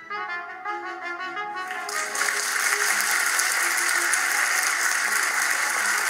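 A light instrumental tune plays, and about two seconds in, audience applause starts and carries on steadily over the music.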